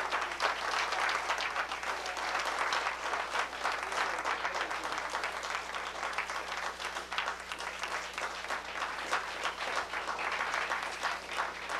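Audience applauding: a crowd of many hands clapping steadily.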